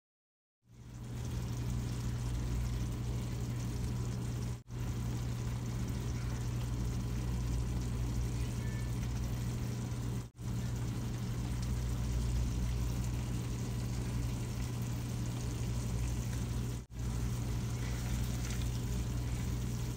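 A steady low hum with an even hiss over it, broken by three brief dropouts where clips are joined.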